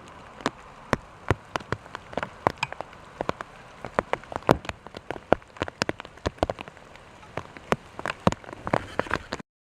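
Rain pelting down in large drops: irregular sharp taps, several a second, over a steady hiss. The sound cuts out completely for about half a second near the end.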